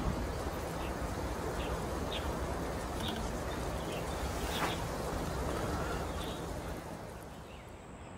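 Steady low wind rumble on the microphone with short, high bird chirps repeating about once a second; the rumble fades near the end.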